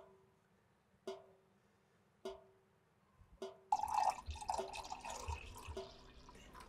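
Maple sap dripping from a metal spile into a metal sap bucket: single drops about once a second, each a short plink with a brief ringing tone. About three and a half seconds in, coffee is poured from a carafe into a mug, a continuous splashing pour that is the loudest part, with the drips still faintly heard beneath it.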